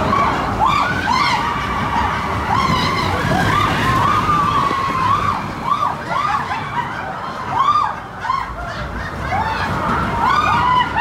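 Roller coaster train rumbling steadily along its track, with riders screaming and whooping over it in many short, overlapping rising-and-falling cries.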